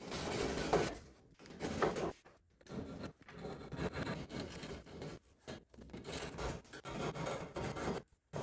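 Handsaw cutting a notch in a wooden boat frame: rasping back-and-forth strokes in uneven runs, broken by short pauses.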